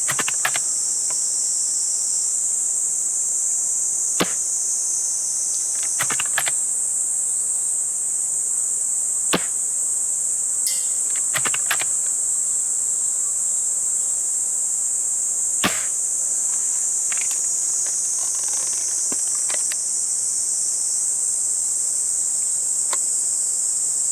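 VSR-10 spring-powered bolt-action airsoft sniper rifle firing single sharp shots several seconds apart, with smaller clicks between them. A loud steady insect chorus buzzes throughout.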